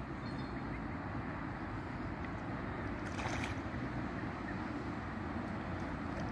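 Steady low outdoor rumble with a brief hiss about three seconds in.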